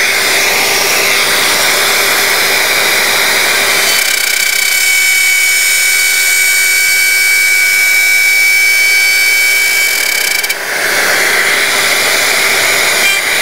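DeWalt compact plunge router running at full speed with a straight bit cutting into wood along a guide rail: a steady high whine over a rough cutting noise. The rough cutting noise eases for several seconds mid-way, leaving the whine clearer, then comes back near the end.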